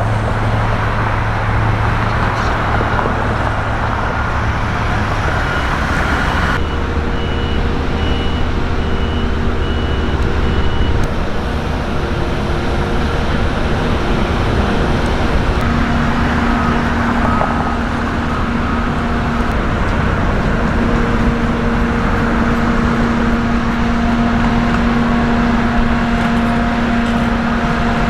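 Steady road traffic and engines of heavy vehicles running, with a high beep repeating about once a second for several seconds starting about six seconds in.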